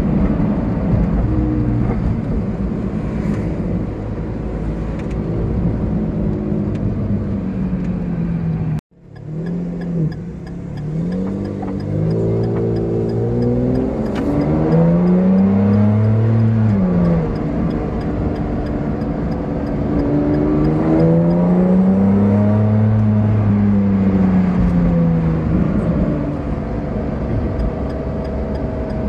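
Ferrari Enzo's V12 engine heard from inside the cabin while driving, its note rising and falling in pitch as the car accelerates and eases off. The sound cuts out abruptly for a moment about nine seconds in, then comes back low and builds again.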